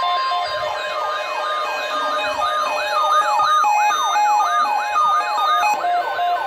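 Weather alert radio alarm: a steady 1050 Hz attention tone cuts off about half a second in, and a siren-like alarm then sweeps up and down about twice a second, with intermittent beeping tones layered over it. It announces an incoming severe thunderstorm watch alert.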